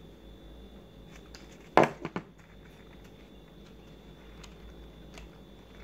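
A hot glue gun set down on the work table: one sharp clack about two seconds in, followed quickly by two lighter knocks. Faint clicks and rustles of stiff paper petals being handled.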